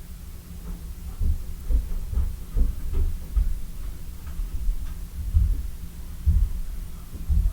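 Irregular low thuds and bumps over a steady low hum.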